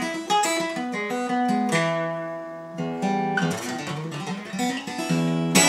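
Sigma steel-string dreadnought acoustic guitar played fingerstyle: a quick arpeggiated run of plucked notes that ring into each other, then a chord struck near the end that rings on.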